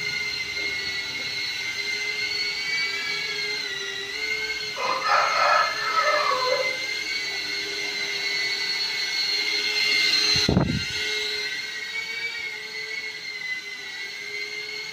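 Happymodel Cine8 cinewhoop drone on Gemfan D51 five-blade ducted propellers, its motors giving a steady whine that wavers slightly in pitch with throttle. A short, rougher sound comes in about five seconds in, and a brief low thump about ten and a half seconds in.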